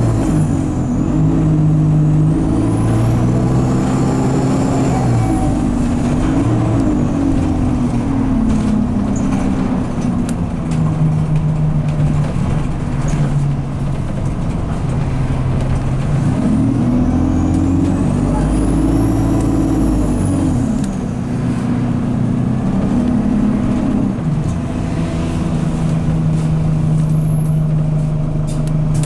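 Alexander Dennis Enviro200 bus engine heard on board, revving up and back down twice with a high turbo whistle that rises and falls with the revs, and running steadily in between. The gearbox is stuck in 2nd/3rd gear, so the engine is held at higher revs than normal.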